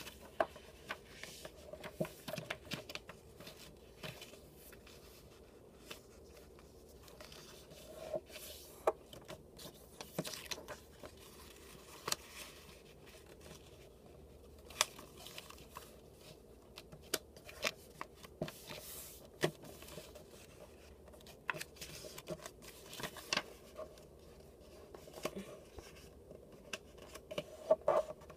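A sheet of paper being folded and creased by hand on a hard tabletop: irregular crinkles, short taps and rubbing strokes as the folds are pressed flat.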